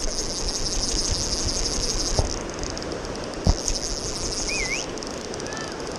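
Rushing water of river rapids, with a high buzzing that comes and goes and a short bird chirp about four and a half seconds in.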